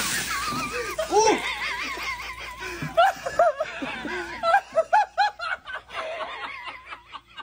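Water from a bucket splashing down over a person, fading about a second in, followed by men laughing in repeated bursts.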